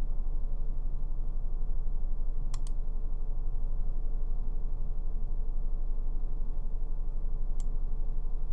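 Computer mouse clicks: a quick double click about two and a half seconds in and a single click near the end, over a steady low hum.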